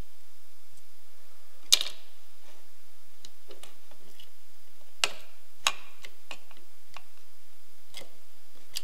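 A long screwdriver clinking against the grip screw and the inside of an AR-15 pistol grip as it is worked down onto the screw. It makes scattered, irregular sharp metal clicks: the loudest about two seconds in, a pair about five seconds in, another near the end, and lighter ticks between.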